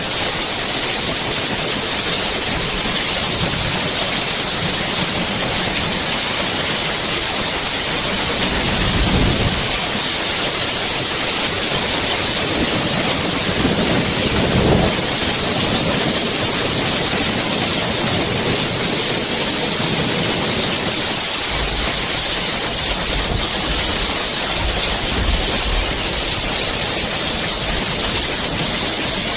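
Heavy rain falling steadily, a dense even hiss. Low rumbles swell up several times beneath it, around a third of the way in, near the middle and again later.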